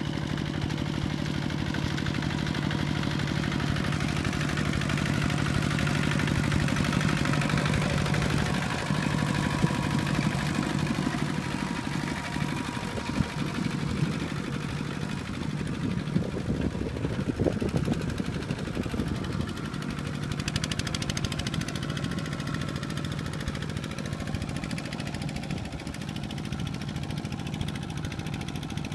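A two-wheel walking tractor's single-cylinder diesel engine runs steadily while the tractor churns through a flooded rice paddy on cage wheels. Its note shifts and turns uneven after about eight seconds as the load changes.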